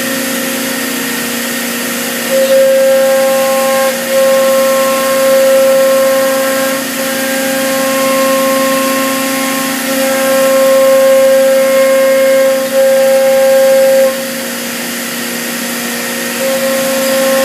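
C.R. Onsrud Panel Pro CNC router running with a steady high whine from its spindle, growing louder in stretches of a few seconds as it cuts into wood panels and easing off again near the end.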